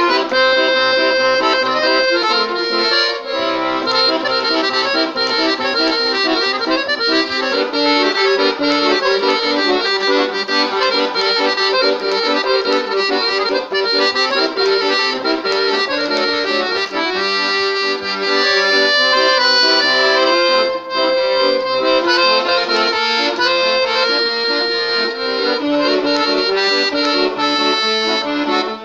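Solo piano accordion playing a Romanian table-song melody, with bass notes and chords repeating under the tune.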